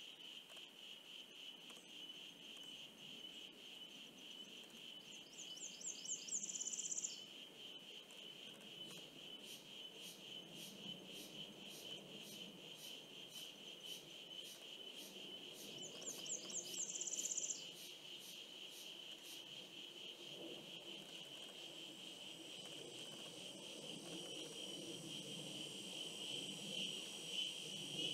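Insects trilling steadily at one high pitch. Twice, about ten seconds apart, a louder and higher buzzy trill rises over them for a second or two.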